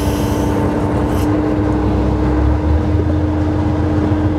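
A steel commercial fishing boat's engine and deck machinery running steadily: a constant mid-pitched hum over a low rumble that shifts slightly about two and a half seconds in.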